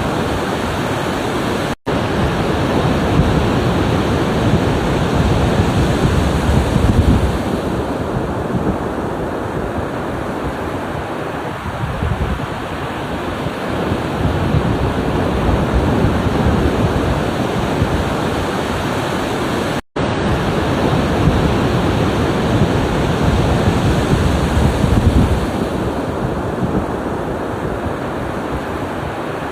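Ocean surf: waves breaking and washing ashore in a continuous rush that swells and ebbs every several seconds. The sound drops out for an instant twice.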